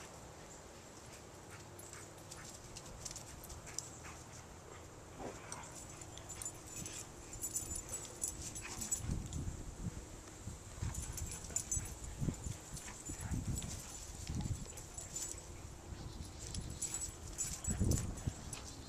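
A husky/Karelian bear dog mix and an older mixed-breed dog play-fighting, with short low growls and grunts coming repeatedly in the second half, loudest near the end. Insects chirp steadily in the background.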